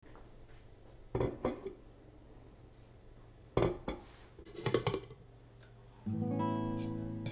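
A few short knocks, then about six seconds in an acoustic guitar chord is struck and rings on, slowly fading, as background music begins.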